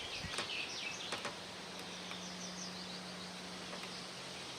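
Small birds chirping in quick, falling trills, with a few faint clicks in the first second or so. A low steady hum comes in about a second in and stops near the end.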